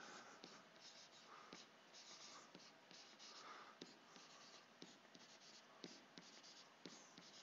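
Faint scratching and light tapping of a stylus writing numbers by hand on a tablet, in short irregular strokes.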